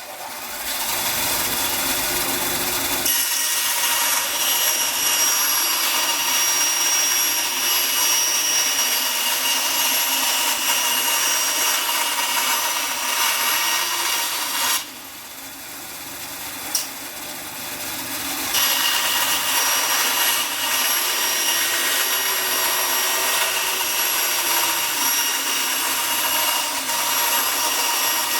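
Table saw running and ripping narrow 15 mm strips, with a steady high whine over the cutting noise. About halfway through the level drops for a few seconds, then the cutting resumes.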